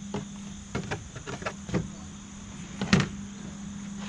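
Scissors snipping fiberglass cloth in a few short cuts, then a louder knock about three seconds in, over a steady low hum.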